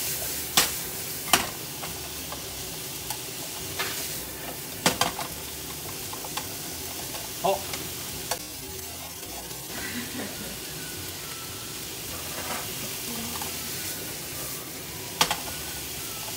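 Sliced onions sizzling steadily in a nonstick frying pan as they are stirred with long wooden cooking chopsticks, which give a sharp click against the pan now and then.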